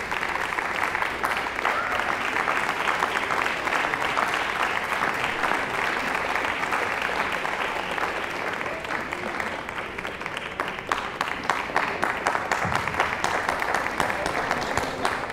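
Audience applauding steadily in a hall. From about two-thirds of the way through, single claps stand out more sharply and separately.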